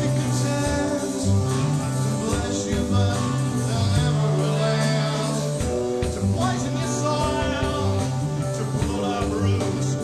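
Live rock band playing: bass guitar notes stepping up and down, one held for over a second about four seconds in, over drums and cymbals.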